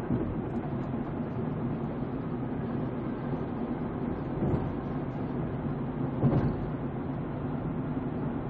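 Car engine and road noise heard from inside the cabin, a steady low hum as the car drives, with two short thumps about four and a half and six seconds in.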